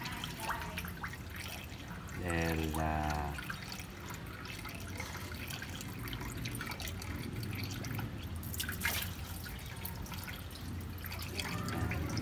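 Distilled water pouring in a thin stream from a plastic gallon jug into a car radiator's filler neck, a steady trickle and splash of water into water. A short pitched sound about two seconds in and a sharp click near nine seconds break in over it.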